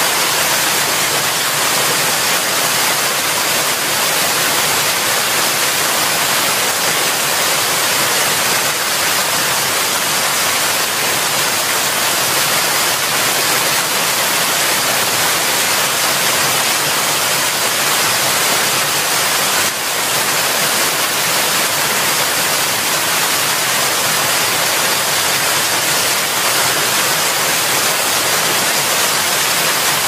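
Waterfall sound, a steady, even rush of falling water that is hissy and heavier in the highs than in the lows.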